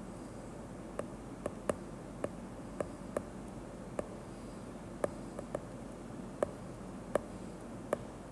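Stylus tip tapping on a tablet's glass screen while handwriting: about a dozen sharp, irregularly spaced clicks over a faint steady background noise.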